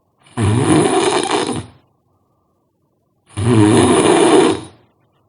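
A person snoring loudly: two long snores, each about a second and a half, some three seconds apart.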